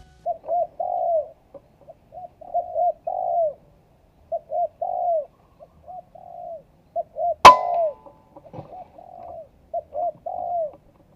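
Spotted dove cooing: repeated phrases of short, low coos. About halfway through a single sharp crack, the loudest sound, cuts across the cooing.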